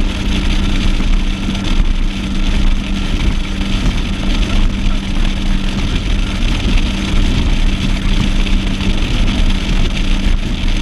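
Outboard motor of a Stratos 201 Evolution bass boat running at a steady speed, with a constant hum under heavy wind and water rush.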